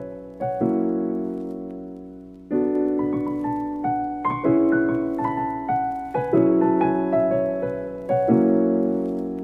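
Background piano music: a chord struck about every two seconds and left to fade, with single melody notes played over it.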